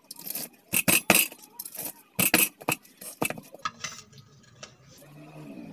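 A cleaver chopping fried chicken on a wooden cutting board: a handful of sharp knocks in the first few seconds, then lighter clicks as the blade carries the pieces onto a ceramic plate.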